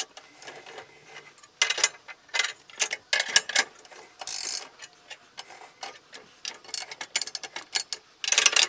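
Irregular metallic clicks and clatter of steel on steel as the support pins and table of a hydraulic shop press are handled and repositioned, coming in short bunches with a brief hiss a little past four seconds in.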